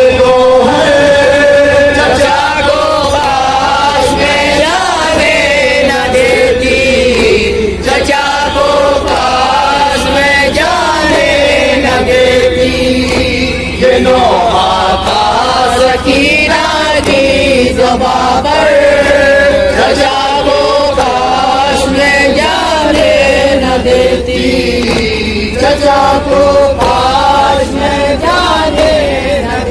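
Male voices chanting an Urdu nauha (Shia lament), amplified through a microphone. A lead reciter is joined by others in chorus, over a steady low hum.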